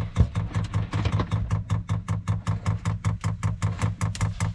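Diesel heater's inline fuel dosing pump clicking rapidly and evenly, about five clicks a second, over a low hum: the obnoxious banging typical of these pumps, loud while priming before the line is full of diesel.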